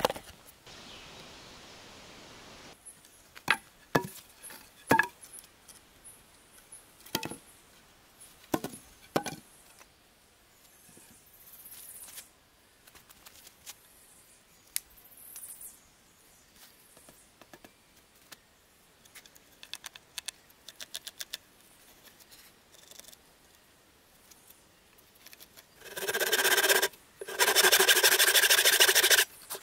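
Scattered knocks and clicks of wooden sticks being handled, then, about four seconds before the end, a handsaw cutting through a thin wooden pole in loud, rasping back-and-forth strokes.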